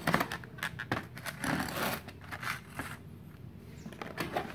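Plastic blister packs of water pump pliers crinkling and clicking as they are slid out of a cardboard box and rubbed against it, with the handling busiest in the first two seconds.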